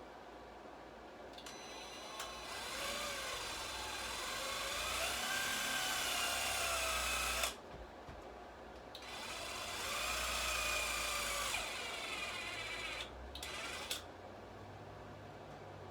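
Power drill running in two long runs and a short one near the end, its motor whine rising and falling in pitch as it works into wood.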